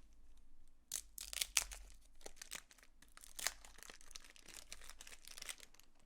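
Crinkling and tearing of a baseball card pack wrapper being opened and handled, in irregular crackles that start about a second in and die away near the end.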